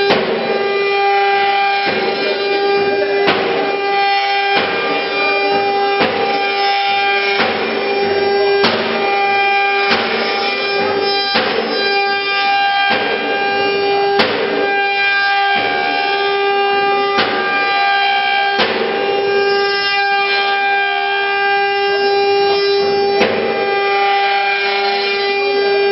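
Spindles of an eight-spindle CNC router with rotary axes whining at a steady high pitch while cutting, with a rasping cutting surge about every one and a half seconds.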